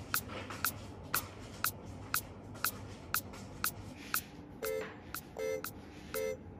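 Clock ticking steadily, two sharp ticks a second. About two-thirds of the way in it is joined by short electronic beeps, one roughly every three quarters of a second.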